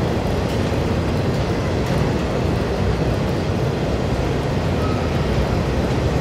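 Steady rumble of freight autorack cars rolling past, steel wheels running on the rails. A faint, brief high tone sounds about five seconds in.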